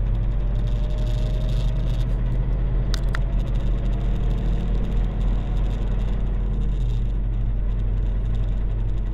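Truck's diesel engine running under load, heard from inside the cab, as it pulls away from a stop and picks up speed: a steady low drone. Two sharp clicks come close together about three seconds in.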